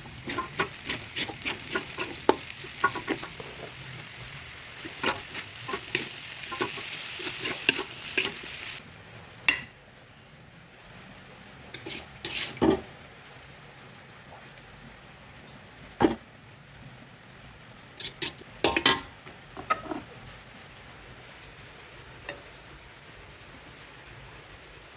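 Fried noodles with chicken skin being stir-fried in a pan: a steady sizzle under frequent clinks and scrapes of a spatula against the pan. About nine seconds in the sizzle stops, and after that there are only a few scattered clinks and scrapes.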